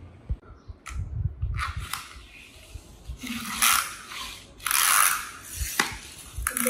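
Plastic toy trains and a toy car being handled, scraping and clattering on a foam play mat in several short, rough bursts with a few sharp clicks.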